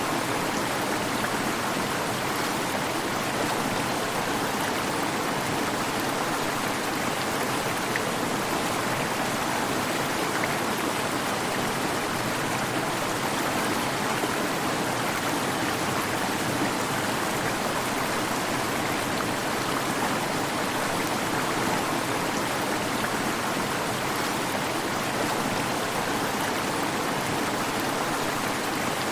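Waterfall: steady, even rush of falling water.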